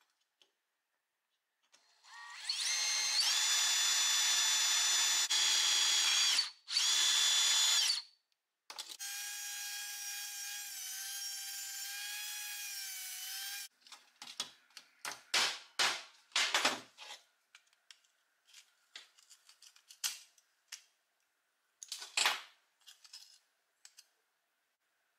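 Electric drill whining steadily as it bores out a rivet in a rusty steel lever part, with a short break in the middle. Then a rotary tool with a cut-off disc runs at a higher, quieter whine for about five seconds. Then come light metallic clicks and clinks as the rusted pieces are handled and pulled apart.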